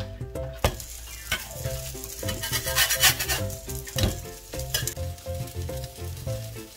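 Potato cheese patties sizzling in hot oil in a frying pan, the sizzle swelling in the middle as they are flipped, with a few sharp knocks of the metal spatula.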